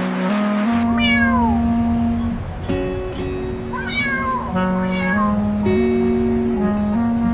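A cat meowing three times, a falling meow about a second in and two more about four and five seconds in, over gentle plucked guitar music.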